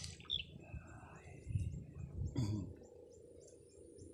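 A wild animal gives a short, high, steady call about a second in, over faint outdoor pond ambience. A few low bumps follow around the middle.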